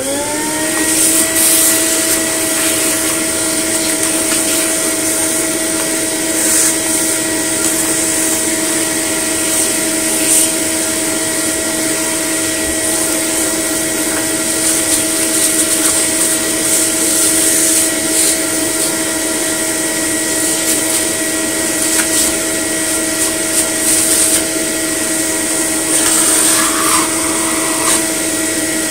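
Vacuum cleaner running on a hose with a crevice tool, sucking dust and hair out of a vacuum's cleaner head and brushroll. The motor spins up at the start, runs at a steady pitch with occasional rattles, and winds down at the very end.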